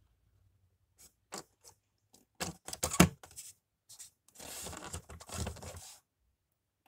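Handling noise from a diecast stock car being turned in the fingers: a few light clicks and taps, a sharper cluster of clicks about three seconds in, then a scraping rustle of hand and car against the surface it rests on.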